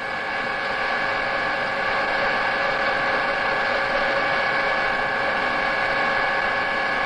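Colchester centre lathe running steadily: an even machine hum with several constant whining tones.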